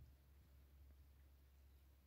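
Near silence: a faint steady low hum with a few very faint ticks.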